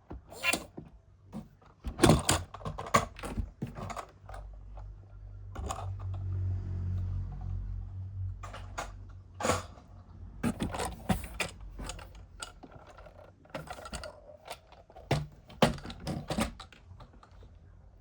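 Plastic toys and their packaging being handled, with scattered sharp clicks and knocks and a low hum for several seconds in the middle.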